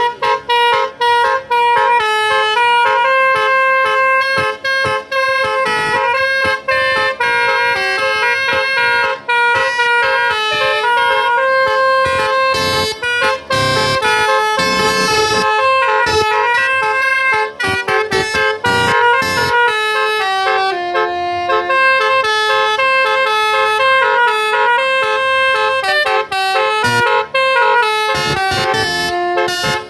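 Basuri telolet musical car horn playing a tune of quickly changing notes, with short breaks between phrases.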